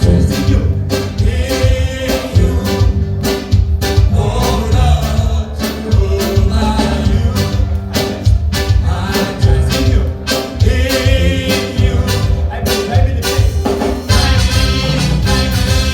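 Gospel song: voices singing over a band with a steady drum beat.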